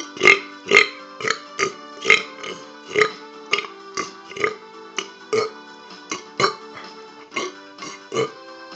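A piano plays a tune on its own while a person burps along to it, a run of short, loud burps about two a second.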